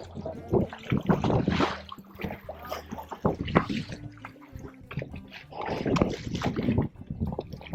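Small tour boat underway: a steady low engine hum, with irregular splashes of water and spray against the hull.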